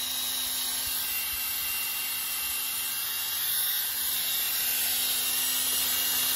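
Milwaukee M12 cordless impact driver spinning freely without hammering, a steady whine that stops briefly about three and a half seconds in and then starts again.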